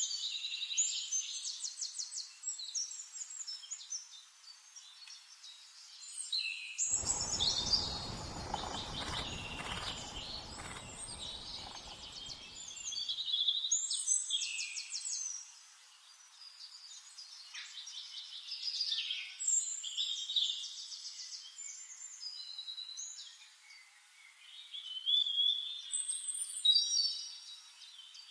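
Flame-faced tanager calls: a busy run of high, thin chirps and rapid trills, often overlapping. A low rumble runs underneath from about seven to thirteen seconds in.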